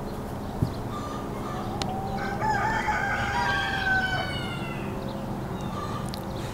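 A rooster crowing once, one long call of about two seconds beginning about two seconds in. A single sharp tap sounds just after half a second.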